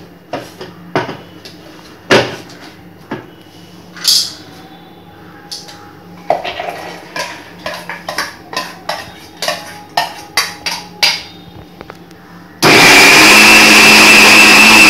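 Clinks and knocks of a steel mixer-grinder jar being handled and set on its base. Near the end an electric mixer grinder (mixie) starts suddenly and runs loud and steady with a high whine, grinding soaked chana dal into vada batter.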